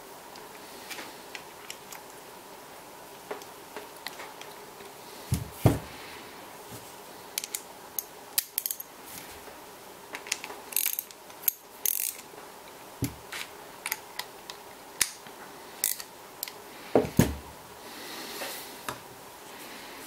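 Screws on the front plate of a Biax scraper's metal housing being tightened with a small hand driver: irregular metallic clicks and clinks, with two louder knocks, about five seconds in and again near the end, as the housing is handled.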